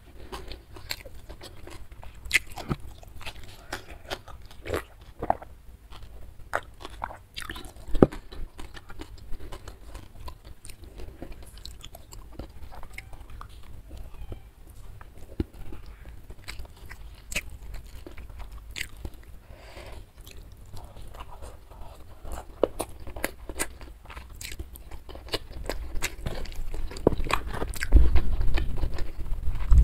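Close-miked eating: a person chewing and biting a meal of rice and side dishes eaten with the fingers. Irregular wet mouth clicks and smacks mix with crunchy bites, and the sound grows louder over the last few seconds.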